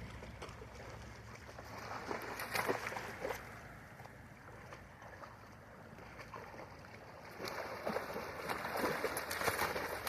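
Water splashing and sloshing as a dog wades and runs through shallow river water, in two louder spells of quick splashes: one about two seconds in, and another building near the end.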